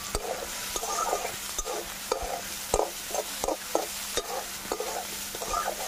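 Prawns frying in mustard oil in a metal kadai, sizzling steadily, while a flat metal spatula stirs them around the pan with repeated scrapes and light knocks against the pan.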